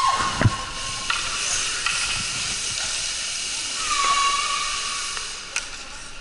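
Ice rink sound during a hockey faceoff: a steady hiss with a steady high tone at the start and again about four seconds in, and a knock about half a second in.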